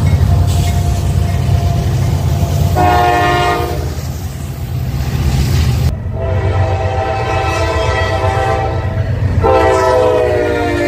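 Diesel freight locomotives rumbling steadily past while their multi-chime air horns sound: a short blast about three seconds in, then after an abrupt cut a long blast, followed by another long blast near the end.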